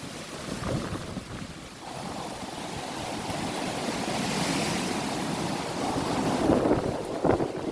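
Strong wind gusting and buffeting the microphone, a rushing noise that swells about two seconds in, with a short loud blast near the end.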